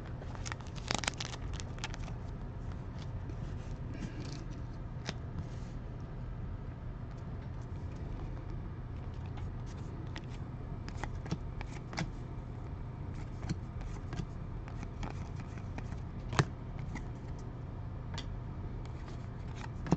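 Trading cards being handled and flipped through: scattered light clicks and scrapes of card stock, over a steady low hum.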